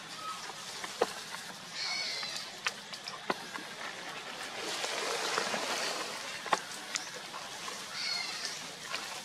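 Two short bursts of high chirping calls, about two seconds in and again near the end, with a few sharp clicks and a swell of rustling in the middle.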